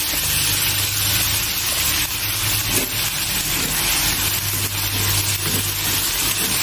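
Shrimp sizzling in a frying pan as fish sauce and seasoning cook into them, with a steady hiss and a low hum underneath. Chopsticks stir the shrimp in the second half.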